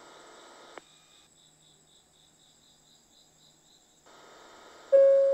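Crickets chirping faintly in an even rhythm, about four chirps a second, with a single click about a second in. Near the end, a station PA chime starts with a loud ringing tone, the opening of an automated announcement.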